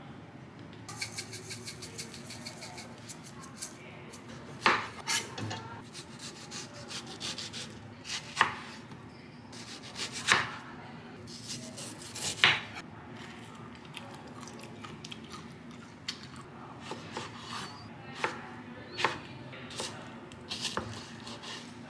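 Kitchen knife cutting a firm, half-ripe mango on a wooden cutting board: the blade knocks sharply on the board every couple of seconds, then comes down in lighter, quicker cuts near the end. Before the cutting there is a brief crisp crackling.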